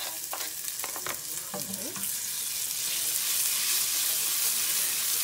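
Chopped red onion sizzling in hot oil in a frying pan, the sizzle swelling after about two seconds into a loud, steady hiss. In the first two seconds there are sharp clicks as a knife scrapes the pieces off a chopping board into the pan.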